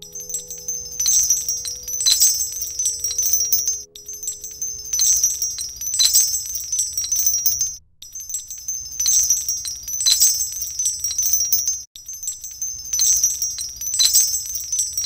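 Small bells jingling and shimmering, with an accent about once a second. The jingling repeats in four-second stretches, each broken off by a brief dropout.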